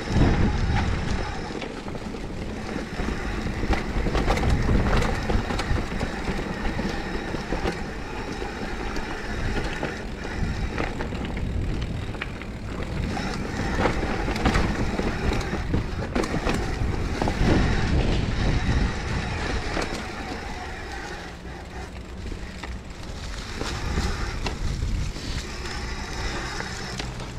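Mountain bike ridden along a forest trail: tyres rolling over dirt and stones, with frequent sharp rattles from the bike over bumps and a low wind rumble on the microphone.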